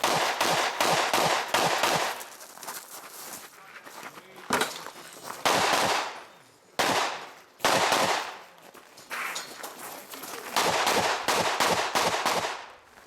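Rifle shots fired in quick strings, with a few single shots spaced out in the middle, each crack trailed by a short echo.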